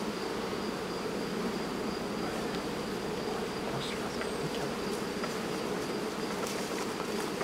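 Honeybees from an opened hive buzzing in a steady drone around the frames of comb being lifted out.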